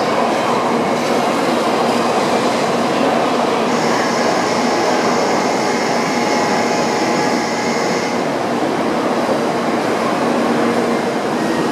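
N700-series Shinkansen train rolling slowly through a station: steady rail running noise. A high, thin whine joins it from about four seconds in and stops about eight seconds in.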